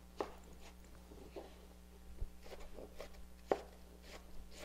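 Chef's knife dicing cucumber on a plastic cutting board: a few scattered, irregular taps of the blade on the board, the loudest about three and a half seconds in, over a faint steady low hum.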